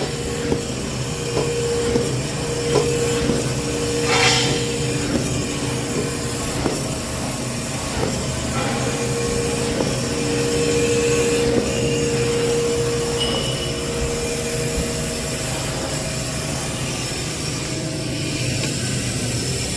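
XY-AI-300 semi-automatic band saw toilet paper cutting machine running: a steady mechanical hum with a whine that sounds for several seconds, stops, then returns, and scattered clicks.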